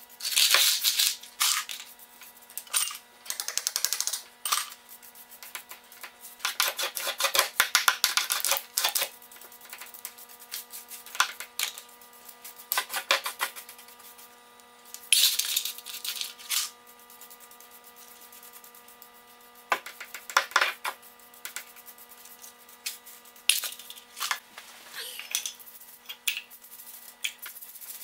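Dry fragments of old tile adhesive being scraped and brushed across a floor and gathered up: irregular scratchy, rattling bursts with quiet gaps between them. A faint steady hum runs underneath.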